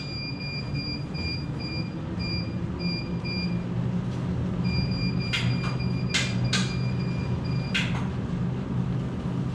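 Treadmill running with a steady motor hum while its console beeps as it is set to stage three of the Bruce protocol, 3.4 mph at a 14% grade: short beeps about twice a second, then one long beep of about three seconds. A few sharp clicks sound over it.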